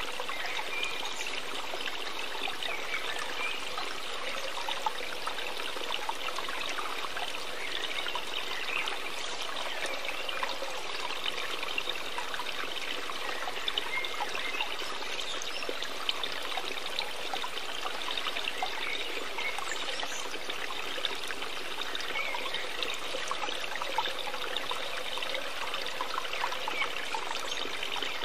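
Steady running water, a continuous trickling, stream-like rush with no breaks.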